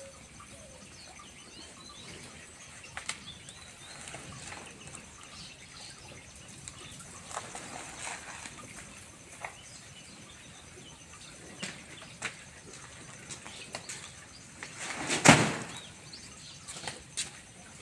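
Heavy feed sacks being unloaded from a cart: scattered soft knocks, and one loud thump about fifteen seconds in.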